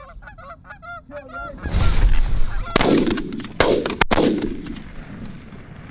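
Geese honking in a quick run of short calls. Then a loud rush of noise and three shotgun shots in quick succession as hunters fire from their blinds at the passing flock.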